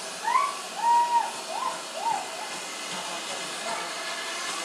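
Steady hiss of steam from GWR 28xx 2-8-0 No. 2807 as it approaches. Over it, in the first two seconds or so, come five short wailing animal calls, each rising in pitch.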